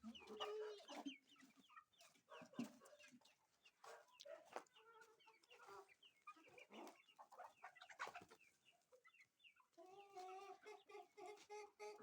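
A flock of chickens clucking faintly, with many short calls, and a longer drawn-out call from about ten seconds in.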